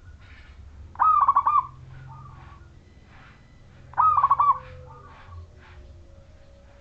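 Zebra dove (perkutut) cooing: two loud phrases of quick rolling notes about three seconds apart, with fainter calls between them.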